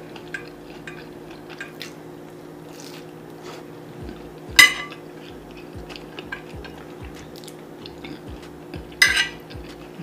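Eating at a table: cutlery clinking on a plate and a mouthful of ackee and saltfish being chewed, with small clicks throughout. Two louder, sharp clatters come about halfway through and near the end, over a faint steady hum.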